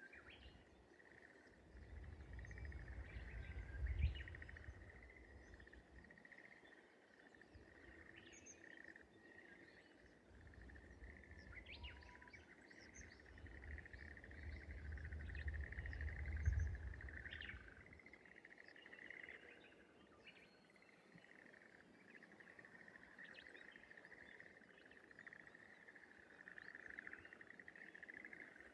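Faint outdoor ambience: scattered short bird chirps over a steady high-pitched drone, with a low rumble that swells through the first half, peaking about four seconds in and again about sixteen seconds in, then dropping away.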